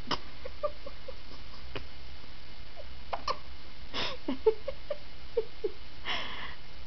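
Baby hiccuping: several short, sharp hiccups a second or two apart, with small soft baby vocal sounds between them.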